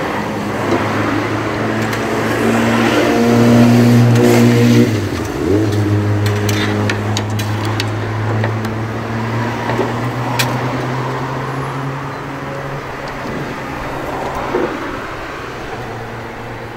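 A motor running steadily with a low pitched hum that dips briefly about five seconds in, with a few sharp clicks or taps in the middle.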